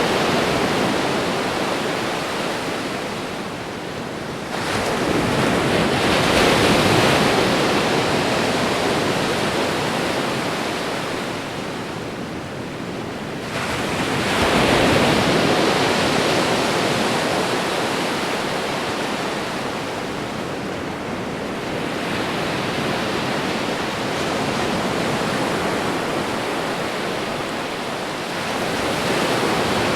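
Ocean waves washing onto a shore: a continuous surf hiss that swells as a new wave comes in about every eight to ten seconds, four times, then ebbs between them.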